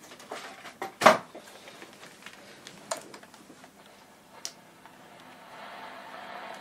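Scattered handling clicks and knocks, the loudest a sharp click about a second in, with smaller ones later. A faint hiss creeps up near the end.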